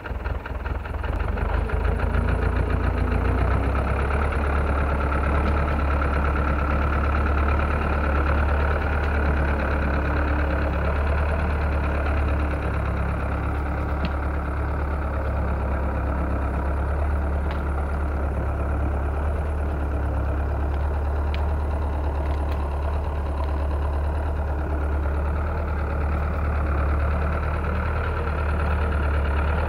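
Homemade tractor's engine running steadily while the tractor drags a felled tree trunk through snow, a deep low hum with a few faint clicks.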